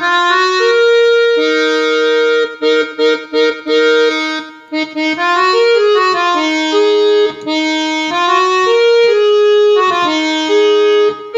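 Harmonium voice of a Roland E-X30 arranger keyboard playing a simple melody of held and short repeated notes.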